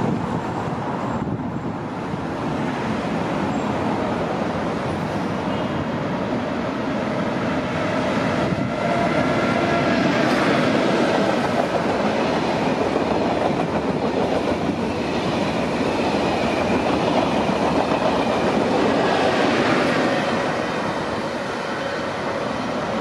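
A double-deck TGV Duplex high-speed train passes close by, its wheels running on the rails. The rumble builds from about a third of the way in, is loudest for about ten seconds, then fades as the train draws away.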